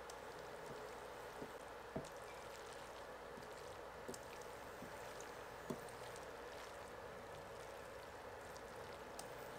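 Spaghetti being tossed and stirred in creamy sauce in a ceramic-coated frying pan with a spatula: soft wet stirring with several light knocks of the spatula against the pan, over a steady faint hiss.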